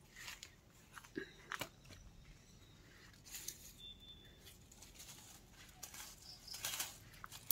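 Faint rustling and crackling of bitter gourd vine leaves being brushed and handled, a few short rustles with the loudest near the end.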